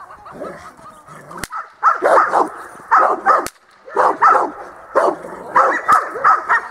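Rottweiler barking repeatedly in bouts of several quick barks, agitated by a helper in protection training. A few sharp cracks sound between the bouts.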